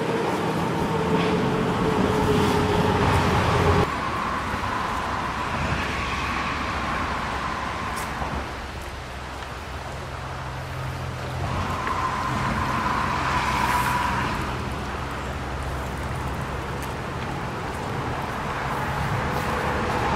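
Road traffic on a bridge: a steady hum of cars, swelling as vehicles pass, twice in the stretch.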